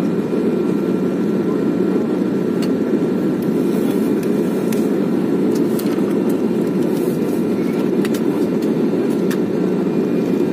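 Jet airliner cabin noise heard at a window seat: the steady, dense rumble of the engines and airflow during descent, with a few faint steady whine tones above it.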